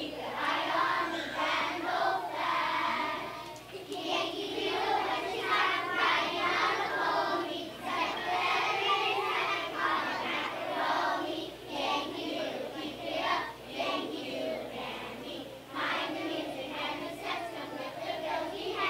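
A large group of young children singing together as a choir, in sung phrases with short breaks between them.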